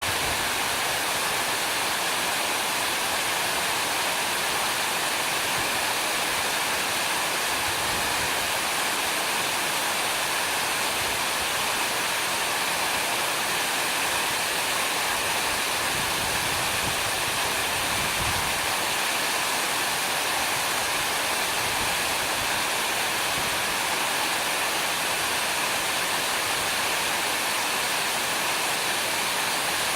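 Waterfall: water pouring and splashing into a pool in a steady, unbroken rush with plenty of hiss.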